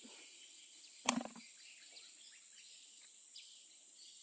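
Faint outdoor ambience: a steady high insect drone with a few short, faint bird chirps. One sharp knock sounds about a second in.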